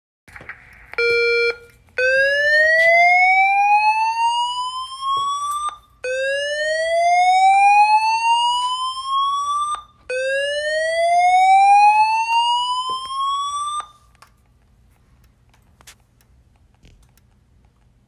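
Fire alarm speaker-strobe on a voice evacuation system sounding its slow whoop alert: a short steady beep about a second in, then three tones that each rise in pitch over about four seconds. This is the alert tone that precedes the spoken evacuation message.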